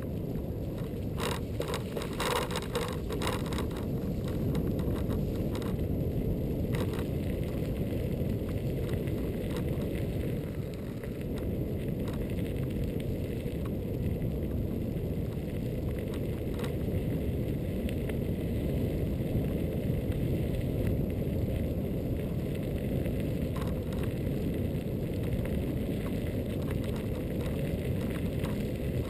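Riding noise on a Xiaomi M365 electric scooter: a steady low rush of wind on the microphone and tyres rolling on pavement, with a short run of rattling clicks about one to three seconds in.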